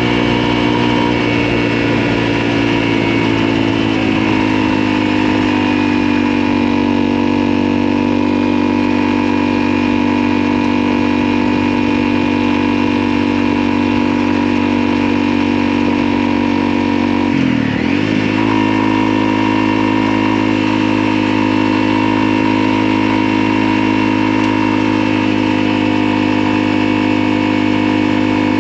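Motorcycle engine running steadily under way, its pitch easing down over the first few seconds, with a brief sharp dip in revs a little past halfway, as in a gear change.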